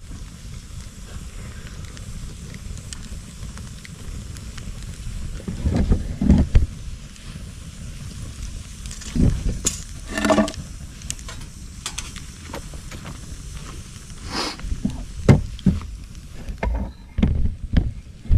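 Bonfire crackling, with irregular sharp pops, over a steady low wind rumble on the microphone. A short pitched whistle comes about ten seconds in.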